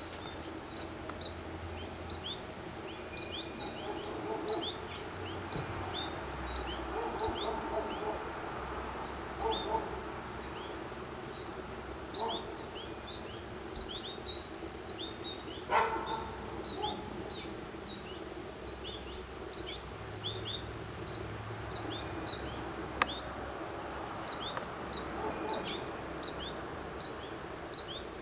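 Small songbirds chirping over and over in short, high notes throughout, with a few lower calls mixed in and one louder, lower sound about halfway through.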